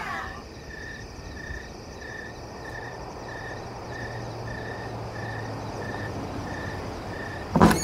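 Crickets chirping steadily at night, about two short chirps a second over a soft hiss. A brief loud burst cuts in near the end.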